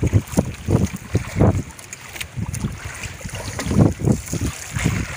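Wind gusting on the microphone in irregular low rumbles, over sea water splashing.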